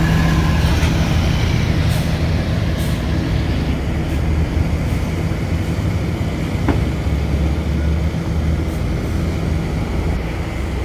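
Diesel engine of a large intercity coach bus running as it pulls past close by: a steady low drone, loudest at the start.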